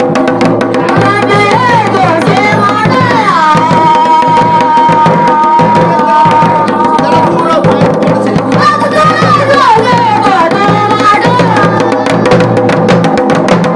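Garhwali dhol drum played in fast, continuous strokes, with a pitched melody over it that bends up and down and holds one long note in the middle.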